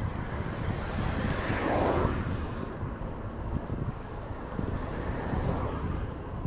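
Wind buffeting the microphone during a bicycle ride, a steady low rumble. A louder rushing swell comes about a second and a half in and cuts off sharply about a second later.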